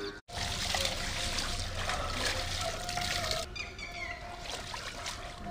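Water running and trickling into a concrete cattle trough, a steady rush that cuts off suddenly about three and a half seconds in. Birds chirp after it stops.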